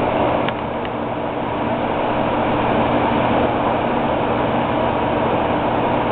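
Steady mechanical hum with an even rushing noise that does not change, and two faint ticks about half a second and just under a second in.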